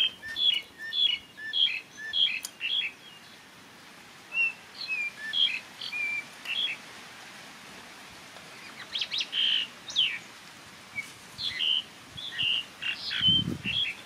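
Small birds chirping in quick runs of short, high notes, coming in four bursts with pauses of a second or two between them. A brief low thump near the end.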